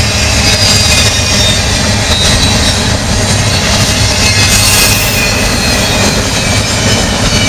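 Intermodal freight train of double-stack container cars and trailer flatcars passing close by: a steady, loud rumble and rattle of steel wheels on the rails, with thin high-pitched wheel squeal over it.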